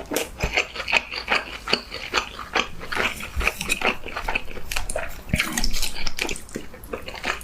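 Close-miked eating: chewing with wet mouth clicks and smacks coming thick and irregular, several a second.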